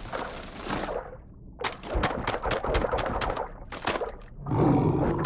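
Cartoon sound effects: a growl at the start, then a quick run of sharp clicks and knocks, and a louder, lower growl near the end.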